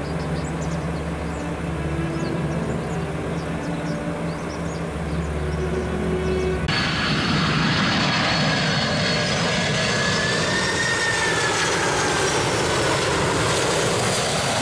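Soft background music for about the first seven seconds, then an abrupt cut to a jet airliner passing close by on the runway approach or climb-out: a broad engine rush with a high whine and a tone that slowly bends up and back down.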